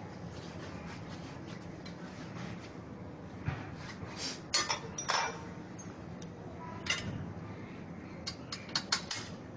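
Scattered light clicks and clinks of hard objects being handled, a few around the middle and a quick cluster near the end, over a steady low hum.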